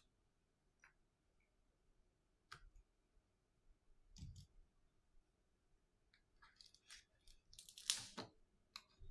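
Faint clicks and taps of small hand tools on an opened iPhone 8's parts during a battery replacement, with a soft low thump about four seconds in. The loudest part is a short run of scraping and rustling near the end, as the tools are swapped.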